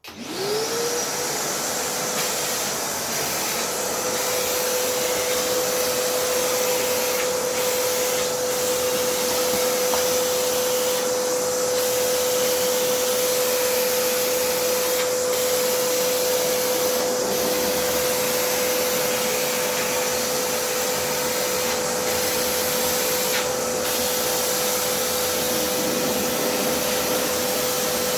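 Kärcher WD 3 wet-and-dry vacuum cleaner switched on, its motor whining up to speed within the first second, then running steadily with a whine over a rushing hiss as it sucks up food crumbs from a countertop.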